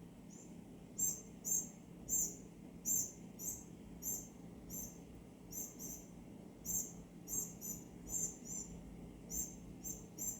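Northern cardinal giving short, high chip notes, repeated irregularly about once or twice a second.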